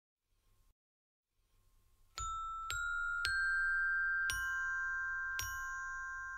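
Near silence, then about two seconds in, soft background music begins: slowly struck, bell-like mallet notes, five strikes, each ringing on.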